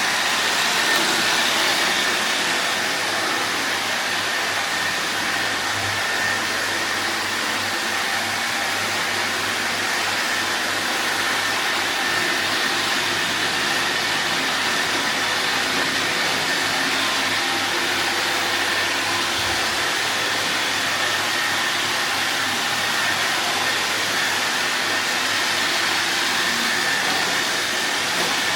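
Robot vacuum cleaner running: a steady whir with a thin high whine through it.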